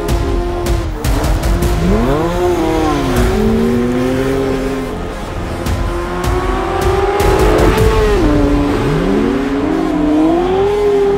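Porsche 911 flat-six engine revving hard while the car drifts on snow and ice; the revs swoop up and down again and again, with one long climb and a sharp drop about two thirds of the way through.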